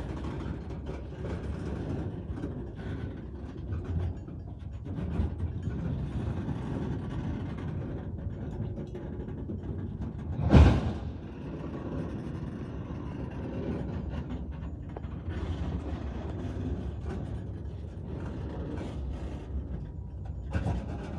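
Freight train tank cars moving past during switching, a steady rumble of steel wheels on rail. One short, sharp, loud thump comes about halfway through.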